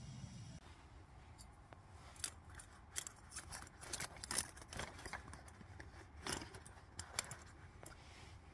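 Close-up handling of small objects: irregular sharp clicks, snips and crinkly rustles, several a second. They come after a steady low rumble that cuts off about half a second in.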